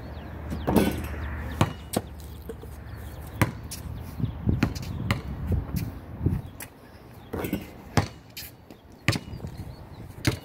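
A basketball bouncing and striking hard surfaces outdoors, giving a string of irregular sharp impacts about once a second, some with a duller thump underneath.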